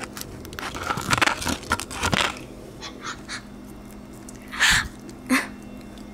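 Mouth and handling noises of someone eating hot, sticky melted marshmallow: soft clicks, smacks and squishes, busiest early on, then two louder breathy bursts near the end.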